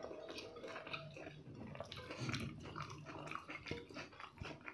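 Faint chewing of people eating pork and rice by hand, heard as a run of small irregular mouth clicks and smacks.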